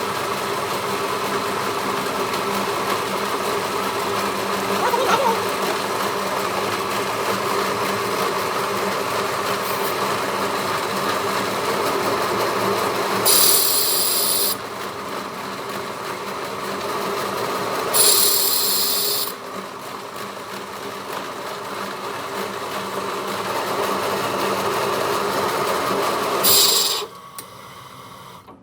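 A workshop machine tool running steadily with a hum of several steady tones, broken by three short, harsh, high-pitched bursts, two of them just past the middle and one near the end. The running sound drops away right after the last burst.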